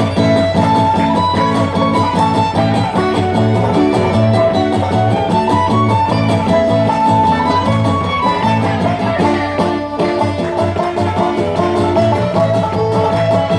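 A fiddle, banjo and guitar band playing a kozachok, a Ukrainian dance tune, live over amplification, with a steady bass pulse underneath.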